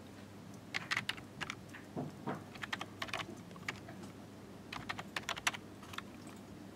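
Typing on a USB computer keyboard: irregular runs of quick key clicks with short pauses between them as a shell command is keyed in, over a faint low hum.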